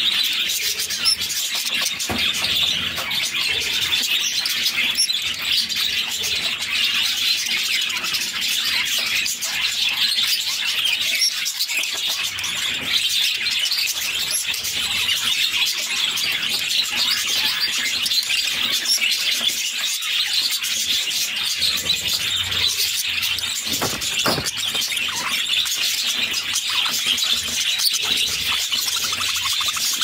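Budgerigars chirping and chattering without pause, a dense, steady twittering of many small high chirps.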